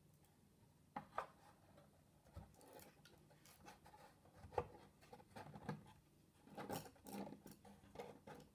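Wooden kumiko lattice panel being slid and pressed into the frame of a shoji lamp: a run of light wooden clicks, taps and rubbing, starting about a second in.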